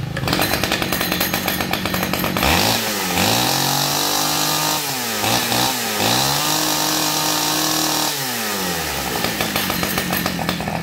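Small two-stroke, air-cooled chainsaw engine running: it idles, is revved up to high speed about two seconds in, dips with a couple of quick throttle blips, is held at high revs again, then falls back to idle near the end. It is a test run of the saw.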